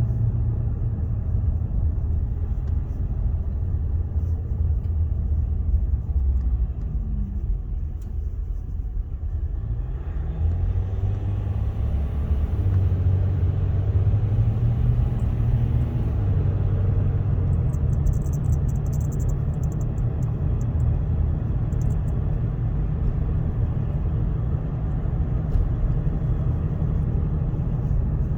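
Cabin noise of a 2015 Ram 1500 pickup with the 3.0-litre EcoDiesel V6 being driven: a steady low engine and road rumble, with the engine note shifting about a third of the way through.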